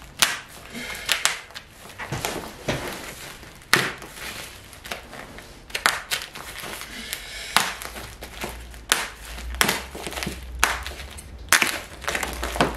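Brown parcel tape and black plastic bin-liner wrapping being cut and ripped off a guitar case with a blade: irregular sharp rips, crackles and crinkles of tape and plastic.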